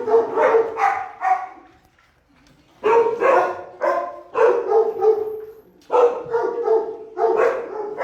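Dogs barking repeatedly in quick runs of several barks, with a short pause about two seconds in.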